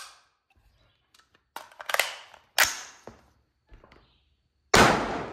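A few sharp metallic clacks and knocks from an AR-15 carbine being handled, then one loud rifle shot about a second before the end, ringing on as it dies away.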